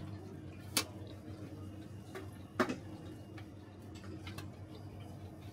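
Metal clinks of a wire fryer basket and stainless steel tray being handled: two sharp knocks nearly two seconds apart, then a few lighter clicks near the end, over a steady low hum.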